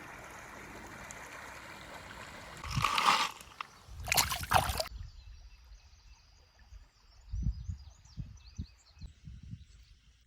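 River water running and sloshing around a kayak, with two louder splashy bursts about three and four seconds in. After that it turns much quieter, with a few low bumps.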